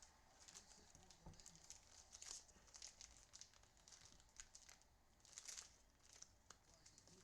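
Faint crinkling and tearing of a foil trading-card pack wrapper being opened by hand, in a run of short rustles.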